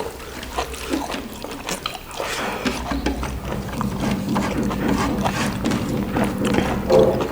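Close-miked eating of boiled buffalo innards: wet chewing and slurping, with many small irregular clicks and smacks.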